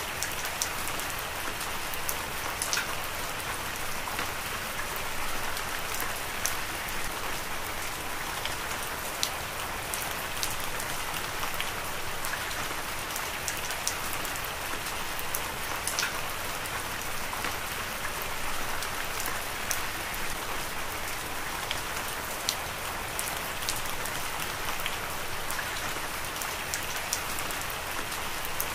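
Heavy rain falling steadily: a continuous hiss with many sharp individual drop ticks scattered through it.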